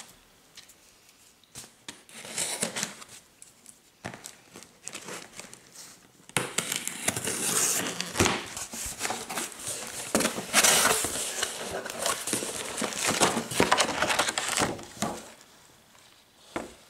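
Cardboard parcel being opened by hand: a few light scrapes and taps at first, then from about six seconds in a long run of tearing, rustling and crinkling as the packing tape is pulled off and the plastic-wrapped contents and a paper leaflet are handled.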